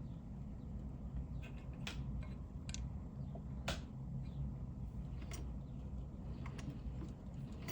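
Davis vertical-feed treadle sewing machine stitching fabric: a steady low mechanical running sound with a few scattered sharp clicks.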